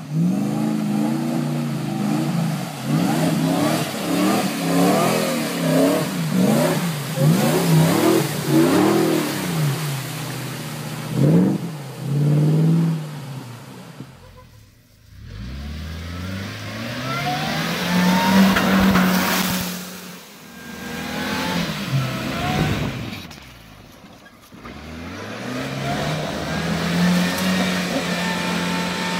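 Supercharged off-road 4x4 engines revving hard, the pitch rising and falling over and over. In the first half the revs come quick and close together. After a short break about halfway, they come as long, slow revs with a high whine climbing with them.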